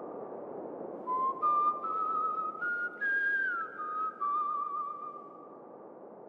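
Whistle-like, slightly wavering tones form a short tune of held notes that step up and down, with one downward slide in the middle, over a soft steady hiss. The notes stop about five seconds in, leaving the hiss.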